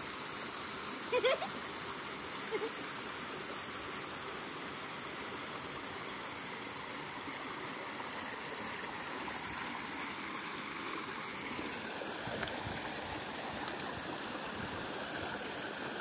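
Small rocky mountain stream flowing over stones, a steady rushing of water.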